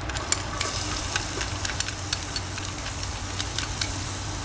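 Minced raw garlic sizzling in a little hot oil in a nonstick frying pan, with many small pops and crackles as it is stirred with a wooden utensil.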